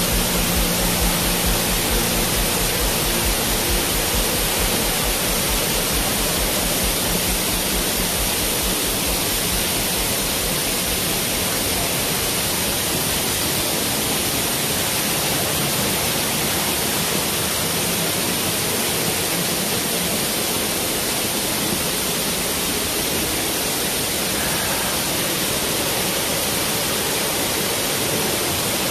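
Steady rush of Dry Falls, a heavy-flowing waterfall on the Cullasaja River, pouring onto the rocks below.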